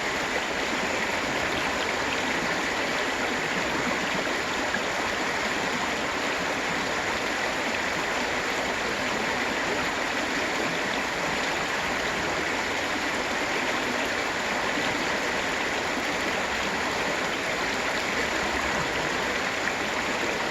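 Water rushing steadily over the rocks of a river's rapids and small waterfalls, a constant full splashing hiss with no change.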